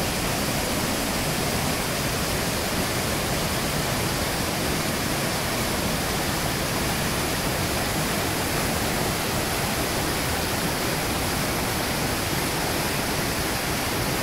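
Waterfall and cascading stream rushing over rocks: a steady, even rush of falling water that does not change.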